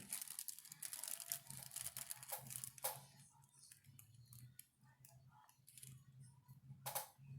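Faint handling noise as a phone is repositioned: a run of small clicks and rustles in the first few seconds, then quieter, with a sharper click near the end, over a low steady hum.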